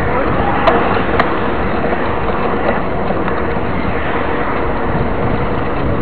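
Steady wind and road rumble picked up by a camera riding on a moving mountain bike rolling along asphalt, with two sharp clicks about a second in.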